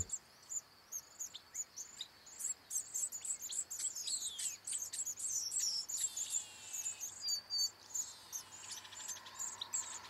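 Many small birds chirping and twittering faintly, with several thin downward-sliding whistles and, near the end, a fast buzzy trill.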